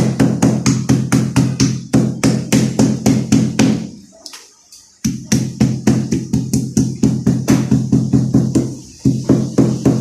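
Background music with a fast, steady electronic drum beat over a sustained bass line. It drops out for about a second midway, then comes back in.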